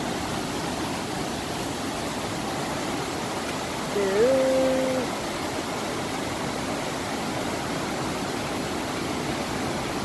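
Steady rush of a shallow rocky stream running over small rapids and around boulders. About four seconds in, a person's voice gives one short sound that rises and then holds for about a second.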